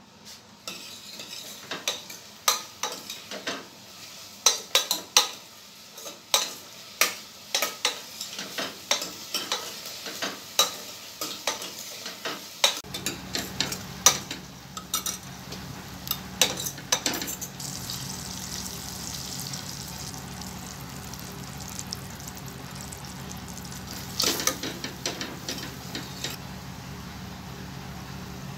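Sliced onions frying in oil in a steel pot, with a steel spoon clinking and scraping against the pot as they are stirred. The clinks are thick in the first half and give way to a steady sizzle under a low hum, with a few more clinks late on.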